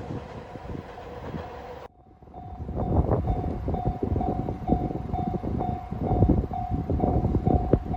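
A train running past, cut off abruptly about two seconds in. Then a Japanese level crossing warning bell starts ringing, a repeating electronic tone about twice a second, over a loud low rumble.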